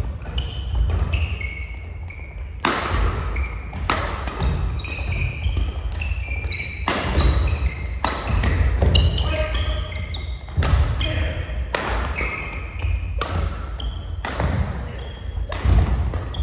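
Badminton rally: racket strings striking the shuttlecock at irregular intervals, roughly once a second, with shoes squeaking and feet thudding on the wooden gym floor between hits.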